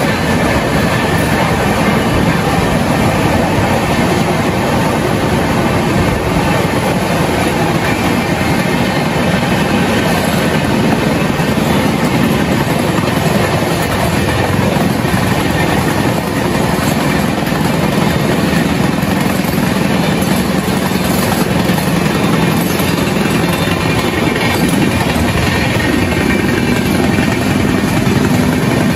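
Loud steady rush of wheels on rail and wind at the open door of a passenger coach running at about 110 km/h, with a second train running alongside on the parallel track.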